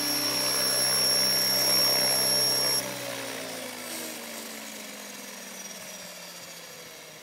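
Align T-Rex 600 radio-controlled helicopter on the ground, running with a steady whine, then its power cuts off suddenly about three seconds in and the rotor spins down, the pitch falling and the sound fading away.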